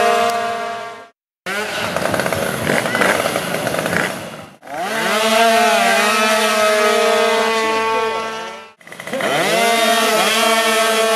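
Small tuned two-stroke drag-bike engines (70–100cc scooter and moped engines) screaming at full throttle as the bikes race down the strip, a high, buzzing, chainsaw-like note. The sound cuts abruptly about a second in and again around four and a half and nine seconds in, and after each of the later cuts the pitch sweeps down and then holds steady.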